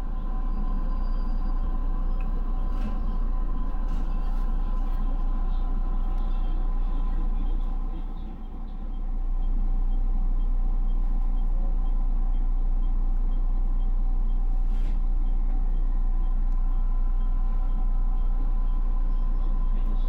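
Electric commuter train heard from inside the leading car as it rolls over station pointwork: a steady low rumble with a constant hum and a few sharp wheel clicks. The sound dips briefly about eight seconds in.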